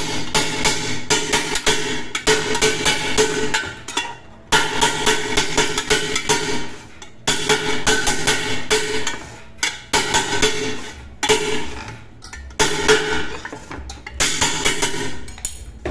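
Quick runs of hammer blows on a rod struck against the bulged base of a pressure cooker, driving the swollen metal back flat. The metal rings under each run, with about four short pauses between runs.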